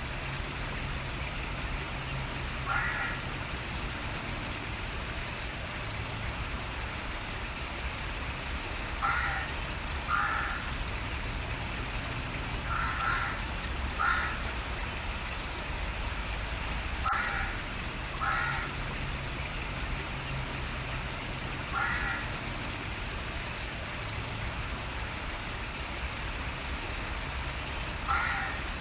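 Steady rush of running water with a bird giving short calls over it, mostly in pairs about a second apart, six times or so.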